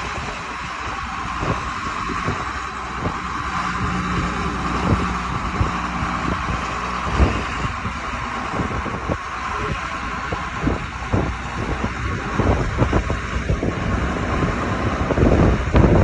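John Deere 8450 four-wheel-drive tractor's six-cylinder turbo diesel running steadily as the tractor drives slowly away. Wind buffets the microphone, more heavily near the end.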